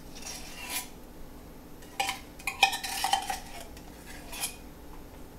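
Metal fork scraping and clinking inside a tin can as thick condensed soup is dug out, in short irregular strokes, busiest about two to three seconds in.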